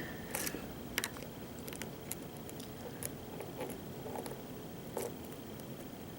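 Faint, irregular light clicks and ticks of a hook pick working the pin stack of a pin-tumbler lock under tension from a pry-bar tensioner, the pins setting and slipping as it searches through false sets.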